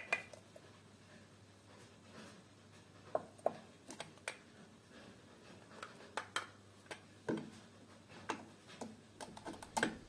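Scattered light clicks and taps of a plastic coffee scoop against a ceramic canister and a metal espresso portafilter as ground coffee is scooped in and pressed down, a few knocks louder than the rest.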